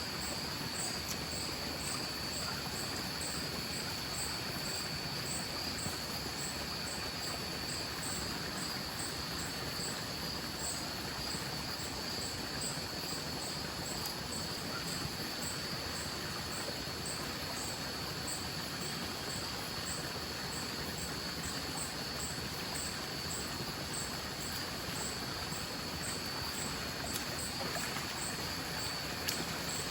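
Night insects calling: a steady high trill and a regular, higher pulsed chirp, over a steady wash of flowing stream water.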